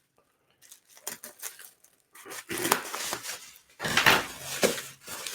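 Blu-ray cases and their packaging being handled: scattered light plastic clicks and taps, then denser rustling and knocking about halfway through.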